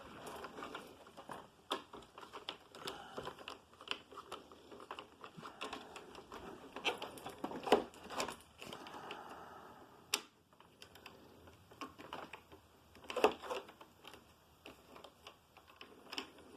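Faint, irregular light clicks and knocks of plastic vacuum cleaner parts being handled, with a few sharper knocks about seven seconds in and again near thirteen seconds.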